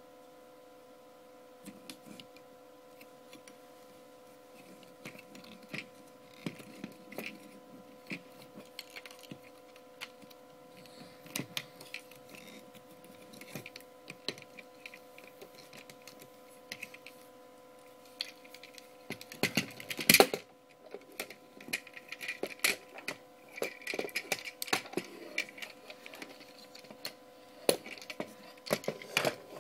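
Plastic clicks and clacks of a 22-inch Dark of the Moon Ultimate Optimus Prime action figure being handled and transformed: its parts and joints snap and click at irregular intervals, with a burst of louder clacks about two-thirds of the way through. A steady hum runs underneath.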